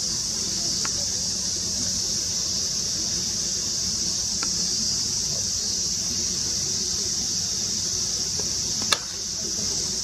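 A steady, high-pitched chorus of cicadas, with a few faint knocks. Near the end comes a single sharp crack of a bat hitting the ball.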